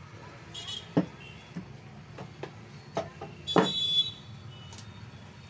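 Knocks and metallic clinks as the cut-off saw's removed armature and other metal parts are handled and set down on a workbench. The loudest is a ringing clank about three and a half seconds in. A steady low hum runs underneath.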